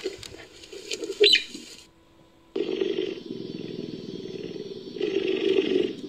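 Cheetah sound effect edited from recorded cheetah and leopard calls: a short high-pitched gliding call about a second in, then from about halfway a low, rough, continuous call that grows louder near the end.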